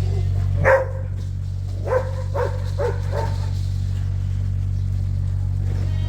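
Five short animal calls, the first and loudest about a second in, then four in quick succession, over a steady low hum.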